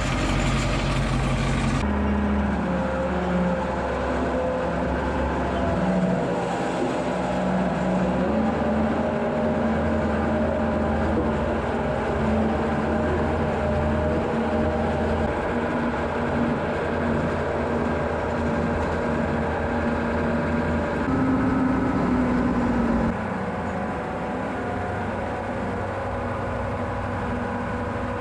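Farm tractor engine running steadily, its pitch shifting a little. The sound changes abruptly about two seconds in and gets slightly quieter about 23 seconds in.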